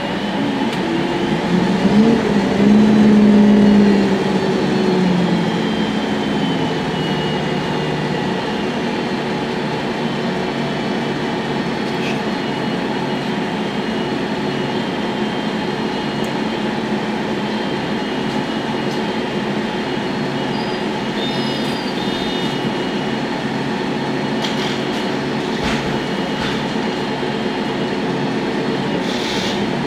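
Inside the passenger cabin of a MAN natural-gas (CNG) articulated city bus standing with its engine running: a steady, even hum, with a louder pitched drone rising and falling during the first few seconds.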